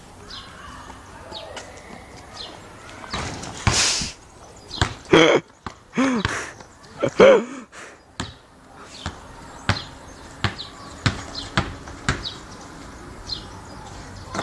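A basketball bouncing on pavement as it is dribbled, a steady run of sharp bounces about one and a half a second in the second half, with a few short shouts from the players in the middle.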